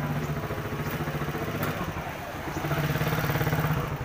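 Motorcycle engine idling with an even pulsing hum, growing louder about three seconds in.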